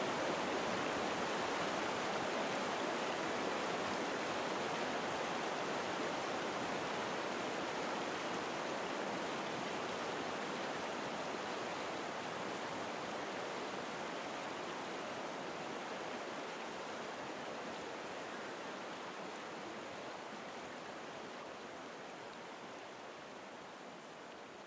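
Steady rushing of river water over rocky rapids, slowly fading out.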